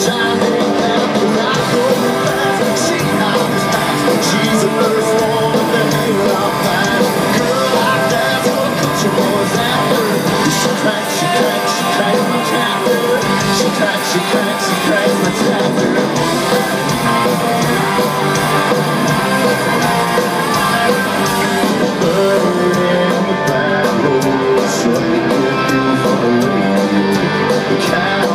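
Live country band playing loud on stage, with drums, electric guitars and a male lead vocal, heard from within the audience.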